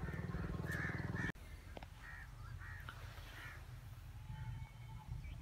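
Crows cawing, several short calls in a row from birds in the trees. A low rumble runs under them for about the first second and stops abruptly.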